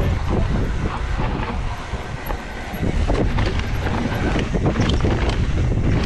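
Wind rushing over the microphone of a mountain bike riding fast downhill on dirt singletrack, over the rumble of the tyres on the trail. Many short rattles and knocks from the bike come through, growing busier and louder about halfway through.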